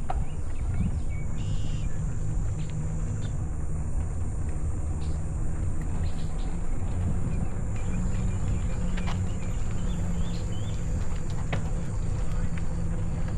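Wind rumbling on the microphone of a moving camera during an outdoor ride, with a steady high-pitched insect drone over it and a couple of faint clicks.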